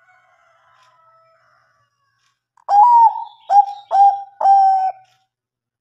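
Bangkok-type zebra dove (perkutut) cooing one song phrase, starting about halfway through: a longer first note followed by three short notes.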